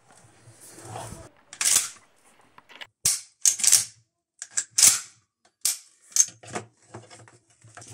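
Remington 870 pump-action shotgun being worked by hand, its short forend sliding back and forth. The action gives a string of sharp metallic clacks, about nine over several seconds.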